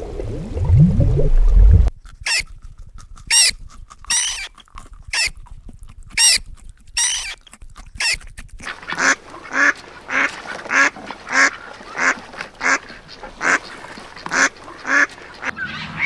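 Repeated short animal calls: about seven spaced calls, then from about nine seconds in a steady run of calls about two a second.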